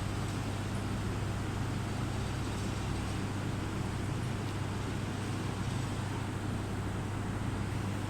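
Steady low machine hum with an even noise over it, typical of a hydraulic busbar processing machine's pump motor running, with no cutting or bending strokes heard.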